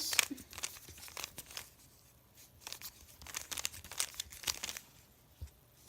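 Plastic 3x3 Rubik's cube being twisted in the hands: quick runs of clicking and rattling as the layers turn, with a short pause in the middle.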